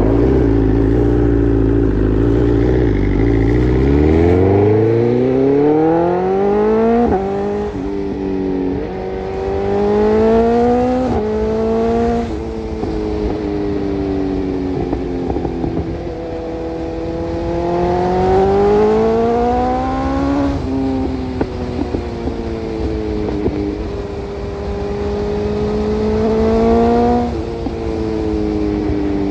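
Suzuki Carry DA63T mini truck's engine, idling low at first and then revved repeatedly while standing: each time the pitch climbs over a few seconds and then drops sharply back.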